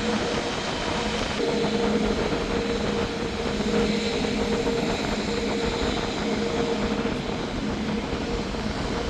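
Jet airliner engines running steadily: a continuous rushing noise with a held whine, neither spooling up nor down.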